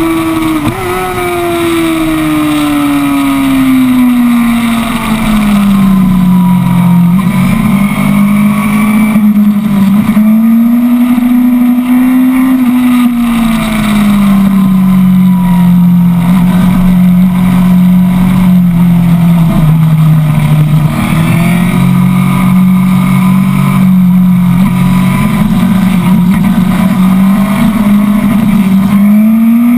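Sport motorcycle engine running hard on a race track, heard from the rider's seat. Its pitch rises and falls with throttle and gear changes through the corners, over steady wind noise.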